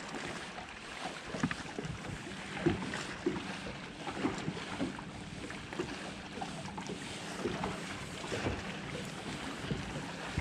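Small wind-driven waves slapping and lapping irregularly against a bass boat's hull, with wind on the microphone and a faint steady hum underneath.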